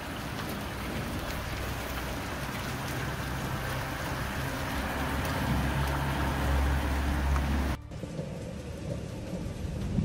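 Small hail falling hard on a van roof and the pavement, a dense, even patter, with a low rumble building under it. About eight seconds in it cuts off abruptly to a quieter, duller rain.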